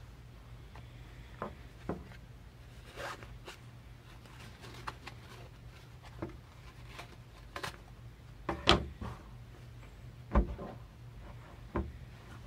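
Unpacking cotton boxer shorts from a cardboard hanger card: fabric rustling and cardboard scraping and clicking in short, scattered bursts. Two sharper thumps land about two-thirds of the way through, as the items are set down on the table.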